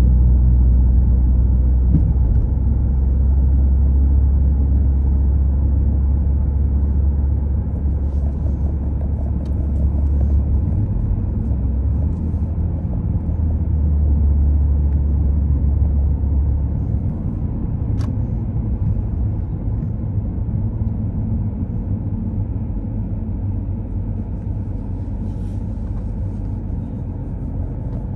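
Steady low rumble of a car driving on the road, easing off gradually over the second half.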